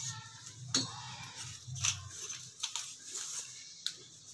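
Scattered light clicks and handling noise from hands working the small chrome fittings of a shower rod, its nut and washer.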